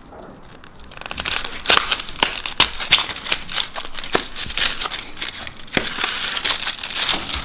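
Cardboard chocolate-bar box being handled and opened: rapid crinkling and scraping of card with sharp clicks, starting about a second in.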